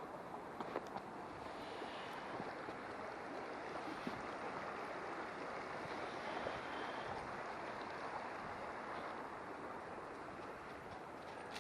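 Steady rushing of a flowing stream, with a few faint clicks over it.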